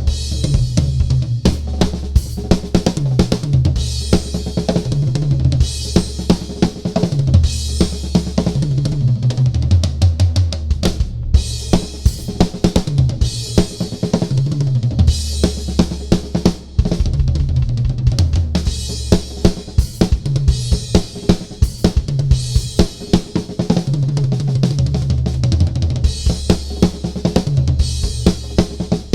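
Gretsch Renown Maple drum kit played in a fast solo: a dense run of bass drum, snare and tom strokes, with Sabian crash cymbals washing in every couple of seconds. A low sustained tone that steps in pitch runs underneath.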